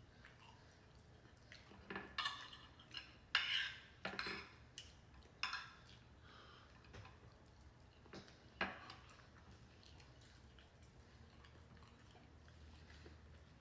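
Cutlery clinking and scraping against dishes during a meal: a handful of short clatters, the loudest about three and a half seconds in.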